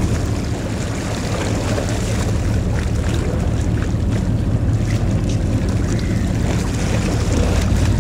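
Passenger fast ferry passing close by, its engines giving a low steady rumble over the rushing wash of water along the hull.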